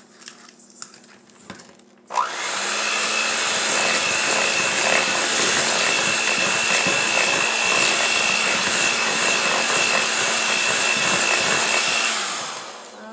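Electric hand mixer switched on about two seconds in and running steadily with a high whine, its beaters working an egg into creamed butter and sugar in a bowl, then switched off and winding down near the end.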